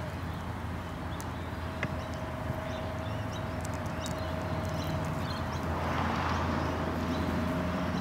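Long-billed corella digging into dry grass and soil with its bill, making scattered small clicks and scratches. Under it runs a steady low background hum with a faint steady tone.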